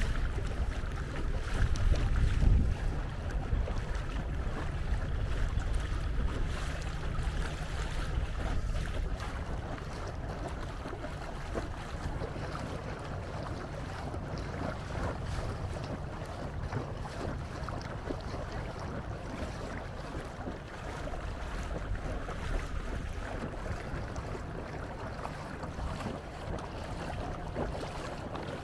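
Wind buffeting the microphone and water washing along the hull of a small canoe under way. The low rumble is heaviest in the first few seconds and eases after about eight seconds.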